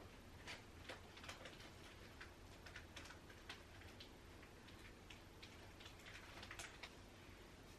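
Near silence: quiet room tone with faint, irregular light clicks and ticks scattered throughout.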